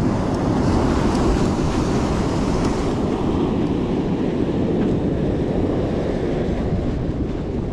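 Steady wash of sea surf against a rocky shore, with wind buffeting the microphone.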